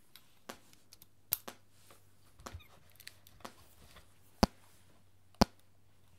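Small handling clicks and knocks as a microphone and headphones are set up. Then a sharp test-pulse click comes twice, a second apart, near the end: a pulse played through a headphone driver into an AKG D12 dynamic microphone.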